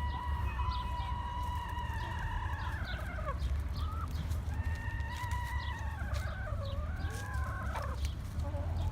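Roosters crowing: two long drawn-out crows, the first ending with a falling note about three seconds in, the second from about four and a half to eight seconds, over short clucks from the flock.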